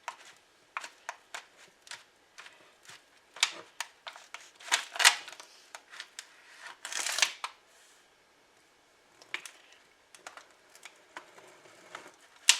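Knife cutting into a frozen no-bake pie, working at the hard graham cracker crust: scattered clicks and short scrapes, loudest about five seconds in, with a longer scrape about seven seconds in.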